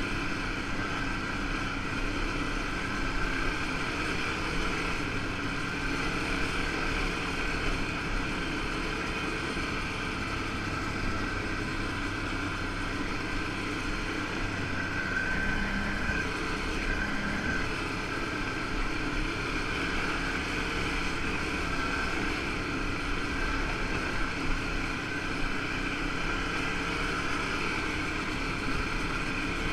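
2013 Can-Am 1000 XT ATV's V-twin engine running steadily under way, with its tyres on a loose gravel trail.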